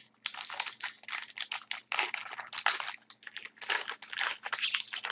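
Crinkling and rustling of a trading-card pack wrapper as it is opened and handled, with cards shuffled in the hands: a fast, irregular run of crackles and rustles.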